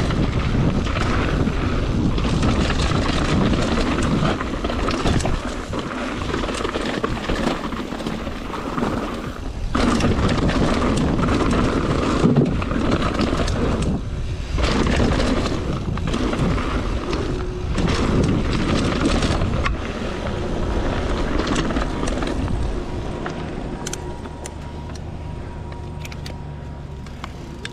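Mountain bike riding downhill on a dirt and gravel trail: wind rushing over the microphone, tyres crunching, and many short clicks and rattles from the bike over rough ground. It gets quieter near the end as the bike slows.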